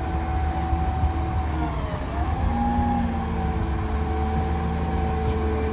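Motor vehicle engine running steadily, with a whine that dips in pitch and then settles at a lower pitch about two seconds in.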